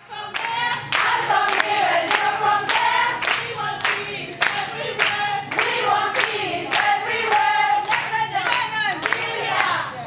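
A group of women singing together in chorus with rhythmic hand clapping, about two claps a second.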